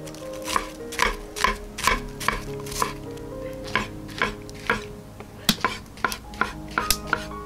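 Chef's knife slicing red onion and then brown mushrooms on an end-grain wooden cutting board: sharp knocks of the blade on the wood, about two a second, coming a little quicker near the end.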